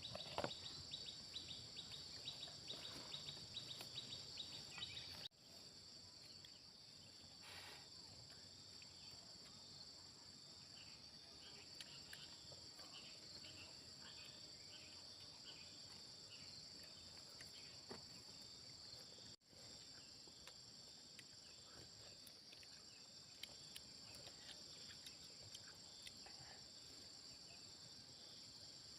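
Faint, steady high-pitched insect chorus, with a rapid run of small ticks during the first five seconds. The sound drops out for an instant twice, about five and nineteen seconds in.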